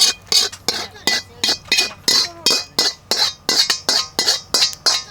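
A metal utensil scraping and clinking against cookware in quick, even strokes, about three a second, as when stirring or whisking in a pot or bowl.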